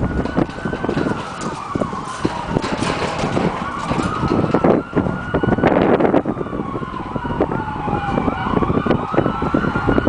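Emergency vehicle siren in a slow wail, its pitch rising and falling in long sweeps, with many short knocks and crackles underneath.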